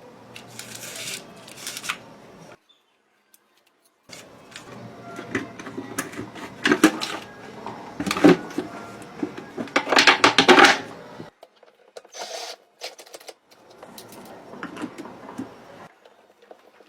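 Clicking and rattling of desk fan parts being handled and worked on by hand, in several bursts that stop abruptly between them.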